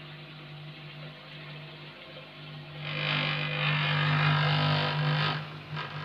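Front-loading washing machine drain pump humming steadily while water gushes out of the drain hose onto the floor, both growing louder from about three seconds in.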